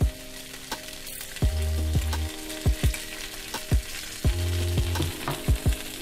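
Oxtail pieces sizzling as they sear in hot oil in a frying pan, under background music with a steady beat of drum hits and deep held bass notes.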